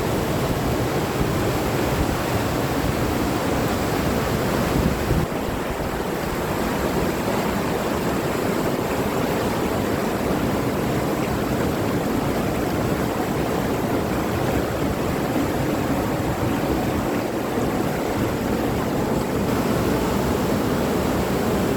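Steady rush of water and wind, like surf, with a brief dip about five seconds in.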